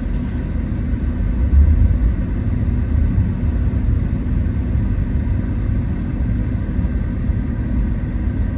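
Steady low-pitched rumble of road and tyre noise inside a Tesla electric car's cabin as the car rolls slowly, with no engine sound.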